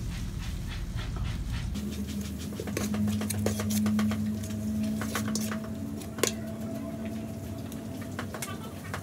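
Metal ladle clicking and scraping against a large aluminium pot as spice paste is stir-fried. About two seconds in, a steady low drone starts and holds, and one louder knock comes about six seconds in.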